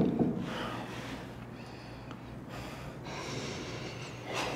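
A person breathing heavily through the nose, several loud breaths about a second apart, the sniffing breaths of someone upset.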